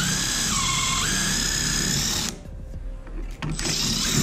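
Cordless drill running a stepped pocket-hole bit through a pocket-hole jig into wood: a steady whine that drops in pitch for about half a second just after the start as the bit bites in. It stops a little after two seconds and starts up again near the end.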